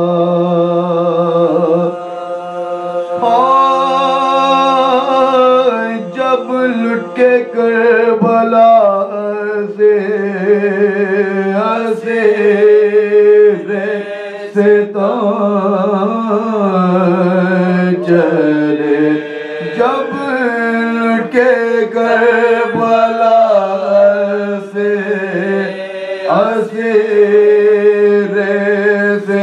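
Men's voices chanting soz, a Shia mourning elegy recited without instruments, in long held notes that glide slowly up and down in pitch.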